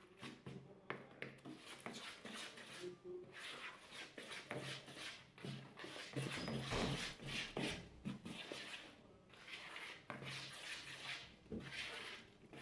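A black plastic spatula stirring thick carrot and coconut cake batter in a plastic mixing bowl by hand: a series of fairly quiet scraping strokes, each about a second long, with short pauses between them.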